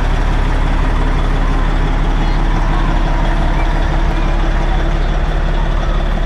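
Heavy truck's diesel engine idling steadily, a low even drone with no revving.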